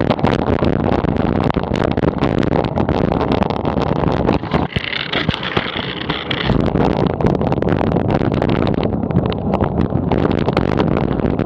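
Wind rushing over a handlebar-mounted camera's microphone on a moving bicycle, mixed with the low running of buses in close traffic. About five seconds in, a high whine sounds over the noise for about two seconds.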